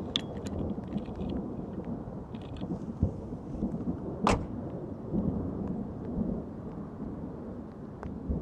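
Thunder rumbling low and dying away, with a few sharp clicks, the loudest about four seconds in.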